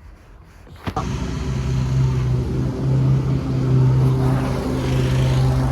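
A car engine running at a steady idle, coming in suddenly about a second in after a few light knocks.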